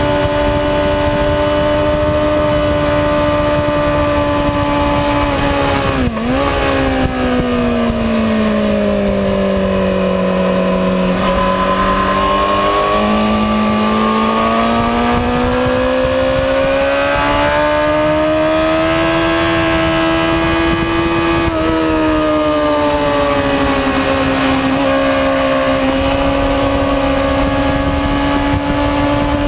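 A motorcycle engine at speed on a race track, recorded onboard with a constant rush of wind. Its revs dip sharply about six seconds in, sink low around ten to twelve seconds, jump back up, climb steadily to about twenty-two seconds, then drop and hold steady.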